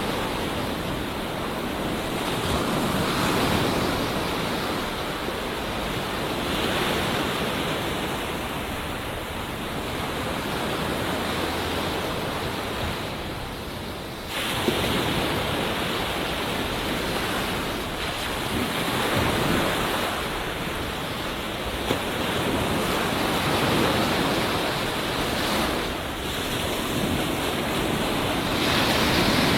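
Ocean surf: waves breaking and washing on a beach, a steady rush that swells and falls every few seconds, with one sudden surge about halfway through.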